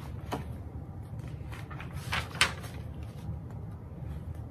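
Paper pages of a paperback picture book being handled and turned: a light click early, then a brief rustling swish of a page about two and a half seconds in, over a low steady hum.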